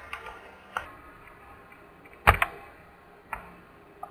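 Scattered sharp clicks of a pointing device, about five over four seconds, the loudest a little past two seconds in.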